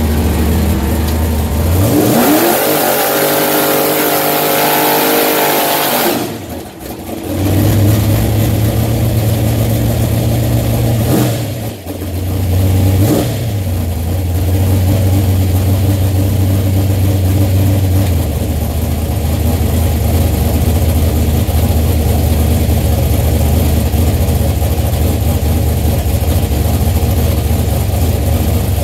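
Race car engine accelerating hard, its revs rising steeply for a few seconds. The engine note drops out briefly about six and twelve seconds in, as at gear changes. It then runs at steady revs, settling a little lower in the second half.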